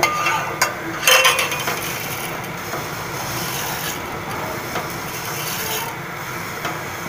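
Dry coloured vermicelli sliding off a plate into a steel pot of boiling milk while a steel spoon stirs and scrapes in the pot, a steady rough rustling with a couple of sharp clinks about half a second and a second in.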